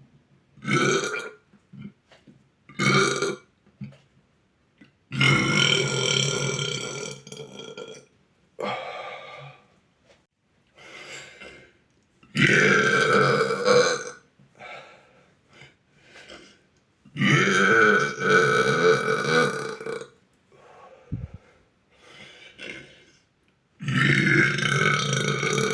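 A boy burping repeatedly and loudly: two short burps, then four long drawn-out burps of two to three seconds each, coming about every five to six seconds, with fainter short sounds in the gaps.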